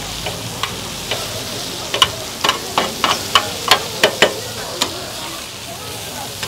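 Food frying on a hot griddle: a steady sizzle, with about a dozen sharp clacks scattered through it, most of them between two and five seconds in.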